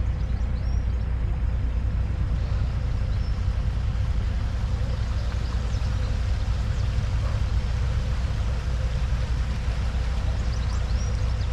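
A boat engine running steadily with a low, even rumble.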